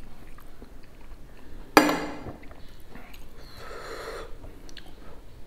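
Quiet eating sounds, small clicks of chewing, with a sudden sharp knock about two seconds in, the loudest sound, and a short sniff about four seconds in.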